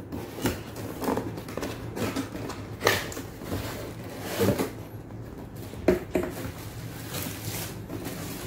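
Cardboard RC-car packaging being handled as the box is opened: irregular rustles, scrapes and light knocks of cardboard.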